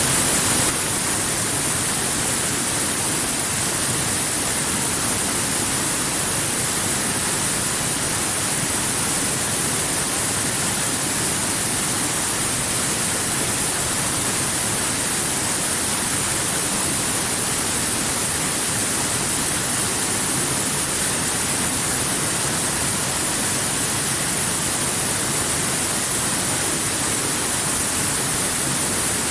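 Waterfall: a steady, unbroken rush of falling water, dropping slightly in level just under a second in.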